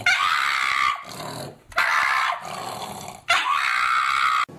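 A pug giving three loud, rough howling yowls in a row, each about a second long with short pauses between, the last cut off abruptly.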